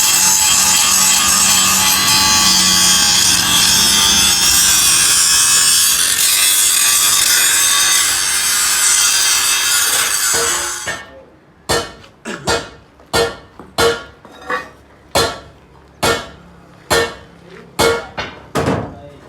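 Power-tool cutting or grinding of metal, a loud steady rasp, stops about ten seconds in. Then come about a dozen hammer blows on metal at an uneven pace, each ringing briefly.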